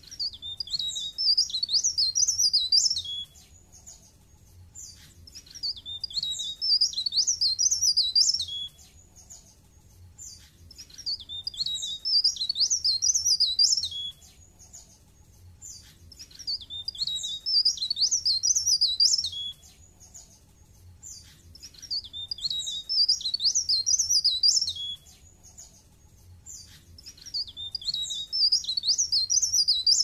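Caged blerengan songbird singing: a high-pitched, rapid twittering phrase of about two to three seconds, ending on a falling note, repeated six times at roughly five-and-a-half-second intervals, with soft faint notes in the pauses.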